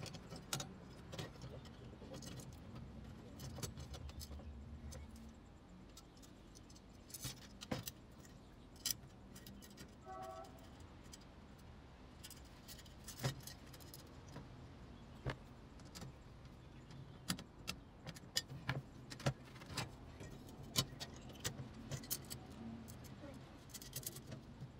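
Glass chandelier panels clinking and tapping against a thin metal wire frame as they are fitted into it: a run of irregular sharp clicks, busiest in the second half.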